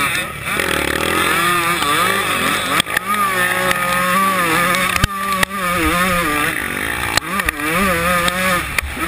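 125cc two-stroke motocross bike engine at race speed, its pitch rising and falling as the throttle opens and closes through the turn and down the straight. A few sharp clicks cut through the engine sound along the way.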